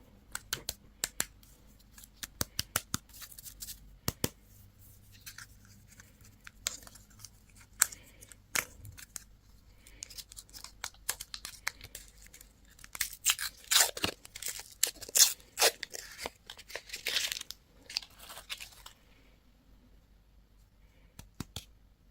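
Candy packaging being torn open and crinkled: a run of sharp crackles and tearing, busiest and loudest in the second half, then it stops a few seconds before the end.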